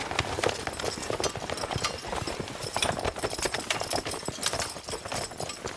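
Many horses galloping together, a dense irregular clatter of hoofbeats from a cavalry charge.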